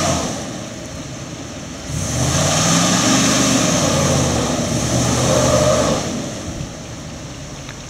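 Dodge pickup's engine revving up about two seconds in and held at high revs for several seconds while the truck works to pull out of deep mud, then dropping back to a lower steady run near six seconds.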